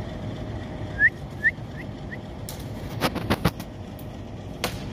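Steady low rumble of background noise. About a second in come four short, high, rising chirps, each fainter than the last, and around three seconds in a quick run of sharp clicks.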